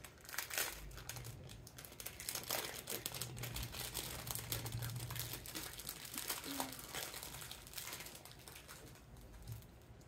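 Packaging crinkling and rustling as a newly arrived item is unwrapped by hand, a continuous run of small crackles.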